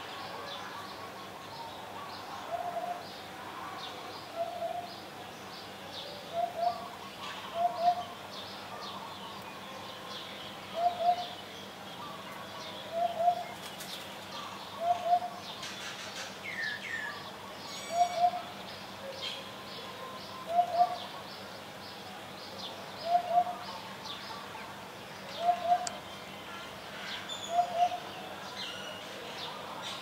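Eurasian hoopoe calling: short groups of two or three low 'oop' notes at one pitch, repeated about every two seconds. Small birds chirp faintly behind it.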